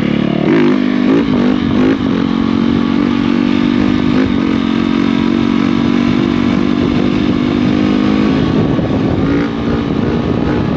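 A 2019 Yamaha YZ450F's 450 cc single-cylinder four-stroke engine revving up and down a few times as the front is lifted into a wheelie, then held at a steady high pitch while the wheelie is ridden. The throttle wavers near the end.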